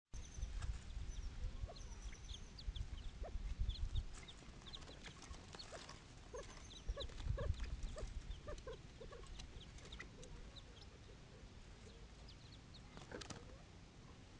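California quail family calling: a scatter of short, high peeps from the chicks, with a run of soft, low clucks about halfway through, over a low rumble.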